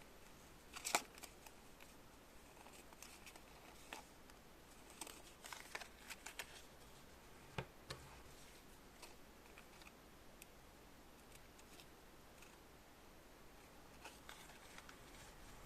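Sparse small clicks and light rustling of small objects being handled, otherwise near silence. The sharpest click comes about a second in, with a cluster of clicks a few seconds later.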